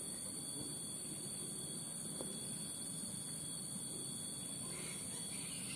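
Steady high-pitched insect drone over a low background rumble, with a few faint squeaky calls near the end.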